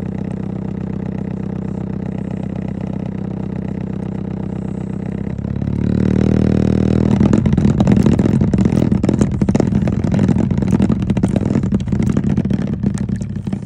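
Low test tone from an online tone generator played through an amplifier and speaker under a trifle bowl of liquid, giving a steady buzz. About five and a half seconds in it grows louder and turns into a rough, rattling buzz as the vibrating liquid and bowl chatter.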